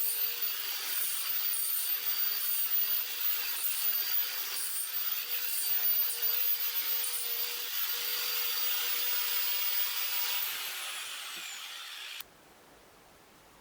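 Power tool running against wood, a steady high whine over an abrasive, sanding-like noise. About ten seconds in the motor is switched off and its whine falls away as it spins down, then the sound cuts off suddenly.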